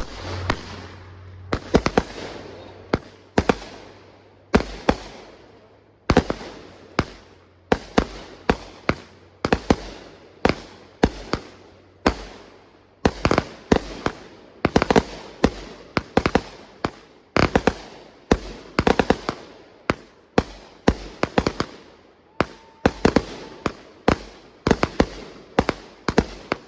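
Consumer fireworks going off in an irregular series of sharp bangs, each with a short echoing tail, often several in quick succession.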